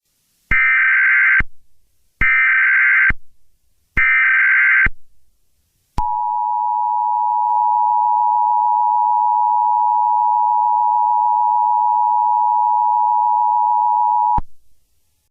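Emergency Alert System tones: three short bursts of screeching SAME digital data, each about a second long and a second apart, then the steady two-tone EAS attention signal for about eight seconds, cutting off sharply.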